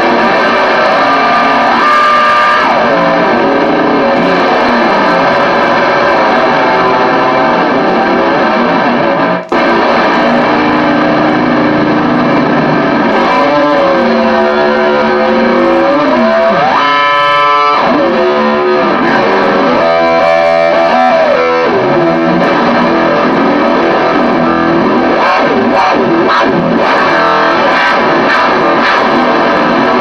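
Electric guitar through distortion and effects, played as dense sustained noisy tones. Twice, about halfway and again about two-thirds of the way through, the pitch swoops down and up in wide wavering glides worked with the tremolo arm. The sound drops out for an instant a little over nine seconds in.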